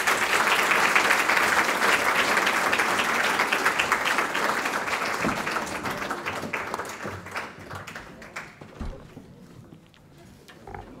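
Auditorium audience applauding, loud at first and gradually dying away to a few scattered claps near the end.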